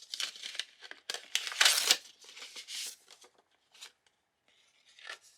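Paper gift packaging being unwrapped by hand: crinkling and tearing, loudest about a second and a half in, then a few soft rustles.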